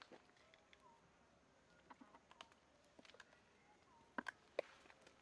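Near silence: faint quiet outdoor ambience with scattered light ticks and clicks, two sharper clicks a little past four seconds in, and a couple of faint short chirps.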